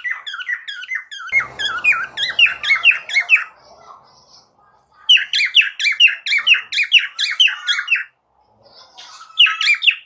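Cockatiel chattering: fast runs of short chirps that sweep up and down, about five a second, in three bursts with short pauses between them.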